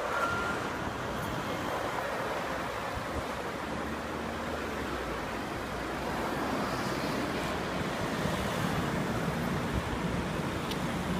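Steady rushing noise of city street traffic: cars and a van driving past on a multi-lane road.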